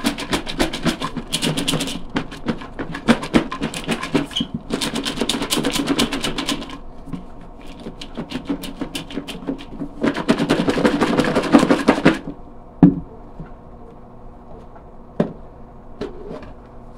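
Chopped salad with dressing being shaken in a lidded bowl: a rapid, busy rattle for several seconds, easing off, then a second short bout. After that come a few single sharp knocks.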